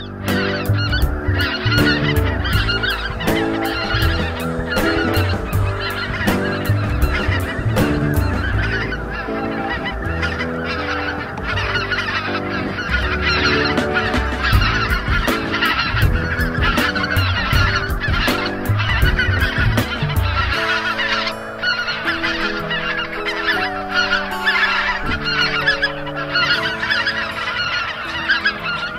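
A large flock of snow geese calling, a dense unbroken chorus of high honks.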